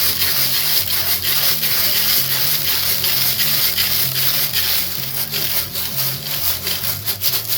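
Steel BBs rattling and scraping inside a metal gas tank as it is shaken, a dense, continuous clatter, used to knock loose the old tank lining and rust.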